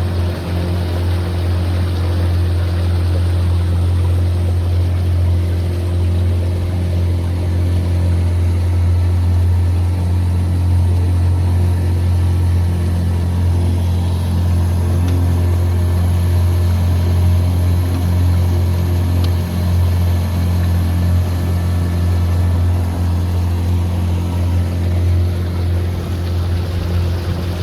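Small boat's outboard motor running steadily at a constant cruising speed, a low even drone.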